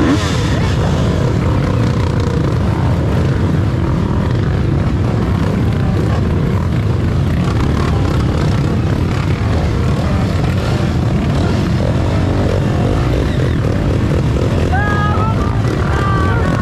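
Steady, loud drone of many off-road motorcycle engines running together, with a few voices near the end.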